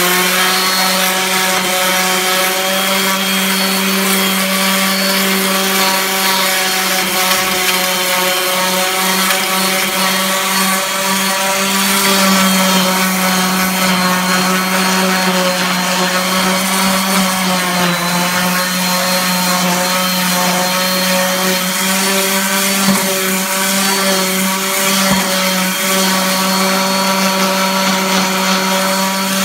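DeWalt orbital sander running steadily on a wooden stair tread, a constant motor whine with the pad scrubbing the wood, to even out worn spots in the step. The pitch sags slightly a couple of times.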